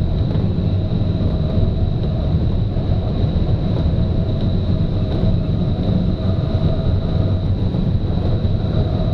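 Steady rush of airflow around an engineless glider in flight, heard inside the cockpit and heaviest in the low end, with a faint steady high whine above it.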